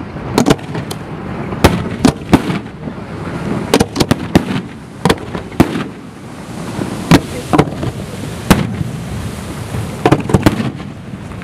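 Fireworks display going off: a long run of sharp bangs at irregular intervals, some in quick clusters, over a continuous rumbling background.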